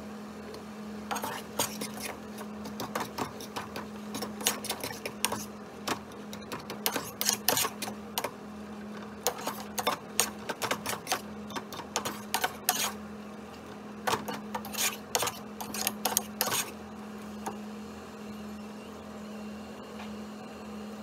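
Irregular clicking and clattering of kitchen tools, in clusters from about a second in until a few seconds before the end, over a steady low hum.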